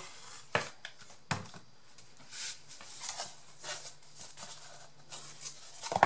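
Hands pressing and rubbing on corrugated cardboard sheets to set freshly hot-glued layers, giving soft swishing rustles, with two short knocks in the first second and a half.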